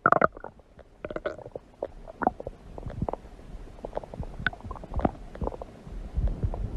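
Human stomach growling: a continuous run of wet gurgles and short pops, with a louder gurgle at the start and another about a second in.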